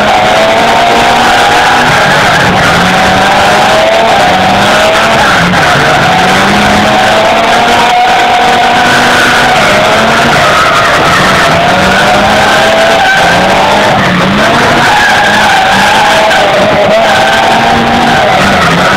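A car drifting: its engine revs keep rising and falling as the tyres skid on tarmac.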